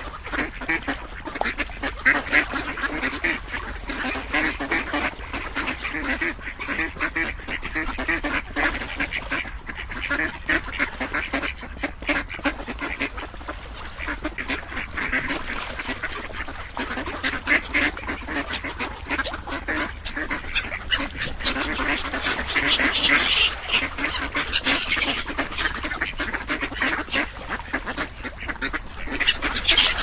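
A group of ducks quacking continuously, many short calls overlapping, a little louder about three-quarters of the way through.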